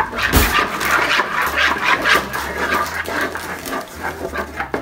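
A metal spoon scraping and clicking against a plastic mixing bowl as pumpkin batter is stirred, mixed with the crinkling of a paper pouch of cookie mix being opened. There is a low thump about a third of a second in.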